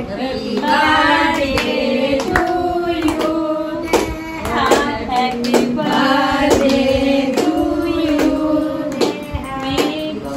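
A small group of voices, mostly women's and a child's, singing a birthday song together while clapping steadily in time.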